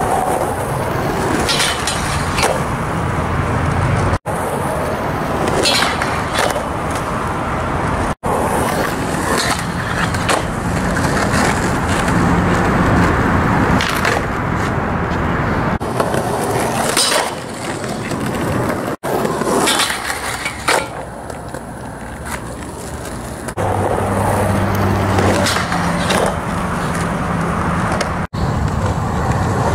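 Skateboard wheels rolling on asphalt, broken by sharp clacks of the tail popping and the board landing, and the trucks grinding a round steel flat bar, over a series of attempts.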